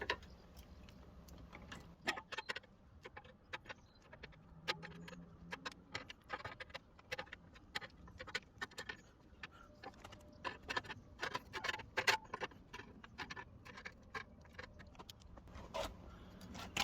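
Irregular small metallic clicks and taps of hand tools, pliers and an adjustable spanner, gripping and working a thin bent steel bracket to straighten it.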